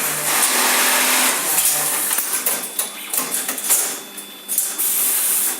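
Automatic back-pocket setting sewing machine running, with loud hissing bursts near the start and again near the end, and uneven mechanical clatter in between.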